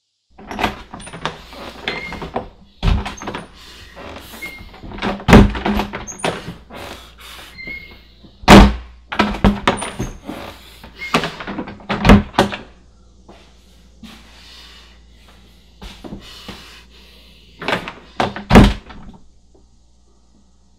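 Irregular series of loud bangs and knocks, the heaviest about five, eight and a half, twelve and eighteen and a half seconds in.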